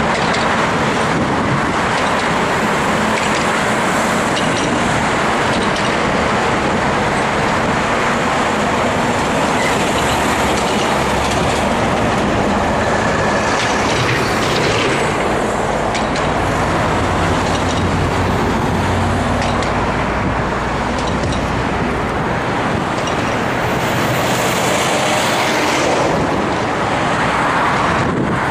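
Steady road traffic noise, with vehicles passing on a busy road.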